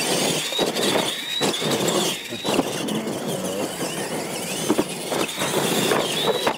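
Electric RC monster trucks racing on dirt: a high-pitched motor and gear whine that wavers with throttle, over the hiss of tyres churning dirt, with several knocks as the trucks hit ramps.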